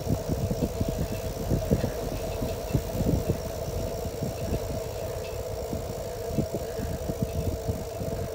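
Bicycle riding over asphalt: a steady hum with low rumble and frequent small rattling knocks from the bike over the road surface.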